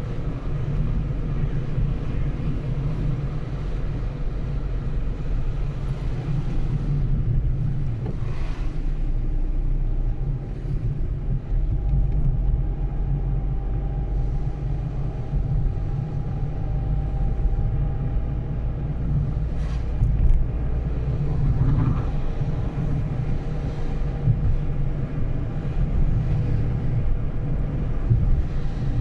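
Steady low rumble of a car driving: continuous road and engine noise with no speech.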